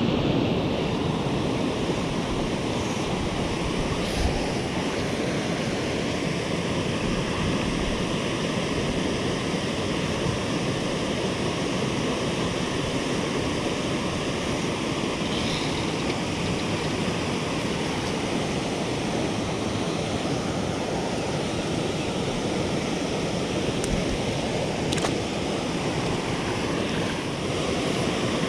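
Steady rush of water from a low rock cascade pouring into a river pool, with a couple of faint ticks.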